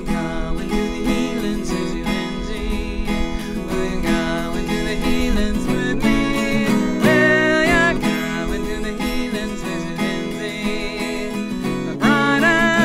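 A twelve-string acoustic guitar is playing, with a woman singing over it. Her voice is strongest about seven seconds in and again near the end.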